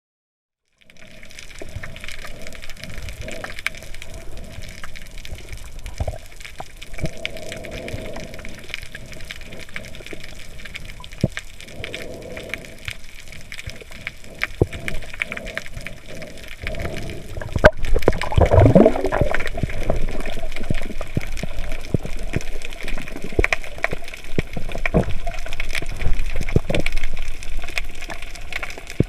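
Underwater sound heard through a camera housing: a steady wash of water noise with scattered small clicks. About two-thirds of the way through comes a sharp crack and then a loud, deep rumble lasting a couple of seconds, which the video presents as an underwater earthquake; the sound stays louder after it.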